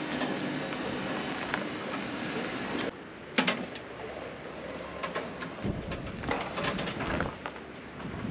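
Tow tug running and pulling on a tow cable. A steady mechanical rumble for about three seconds, then quieter running with scattered clanks and knocks.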